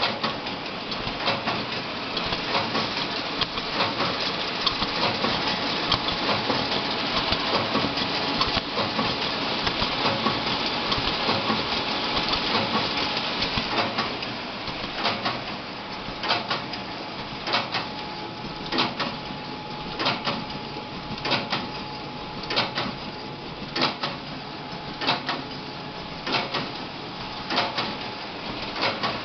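Bourg BST10 tower collator running: a steady mechanical whir with rapid clattering of sheet feeding, turning about halfway through into a regular sharp clack roughly every 1.3 seconds.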